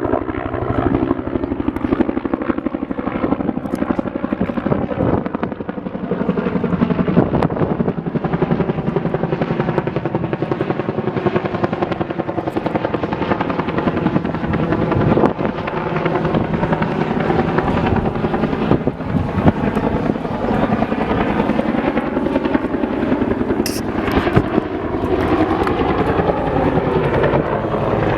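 Fire department helicopter flying close by, its rotor blades chopping fast and steadily over the turbine, the pitch slowly sliding up and down as it moves.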